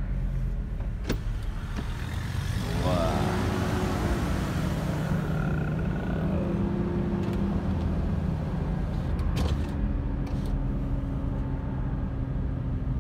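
Car engine and road noise heard from inside the cabin, a steady low hum while driving slowly. About two and a half seconds in, a brief rising whine comes with a rush of hiss, and there are a few short clicks.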